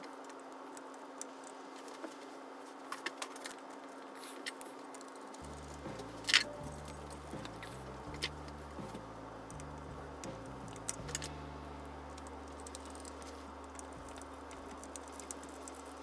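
Scattered light clicks and taps of metal fan parts being handled as the switch-housing cover of a 1980s Fasco ceiling fan light kit is fitted back on, with one sharper click about six seconds in, over a steady faint hiss.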